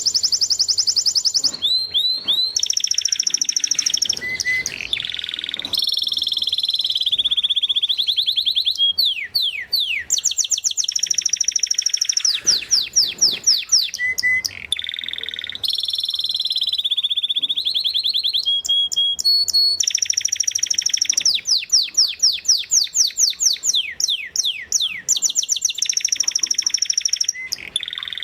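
Spanish Timbrado canary singing a continuous song: long fast trills and rolled tones alternating with quick runs of separate falling notes.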